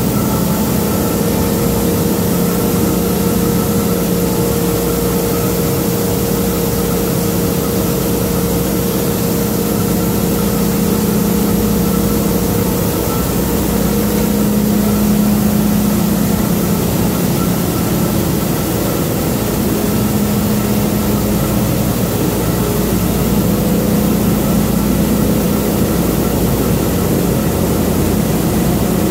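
Heavy printing-plant machinery running steadily: a loud, constant hum with a few fixed tones that holds at one speed.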